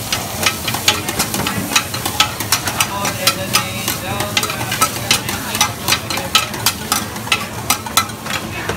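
Metal spatulas clinking and scraping against a large flat wok, irregularly about three times a second, as radish cake cubes are stir-fried. A steady sizzle of frying runs underneath.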